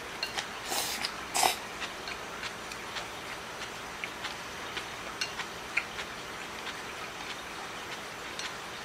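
A person slurping ramen noodles in two short slurps about a second in, then chewing, with small clicks of chopsticks in a ceramic bowl.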